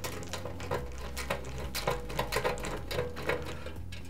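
A screwdriver's quarter-inch hex bit holder turning out small sheet-metal screws from a fan's sheet-metal heater housing: a run of small irregular metal clicks and scrapes, about several a second.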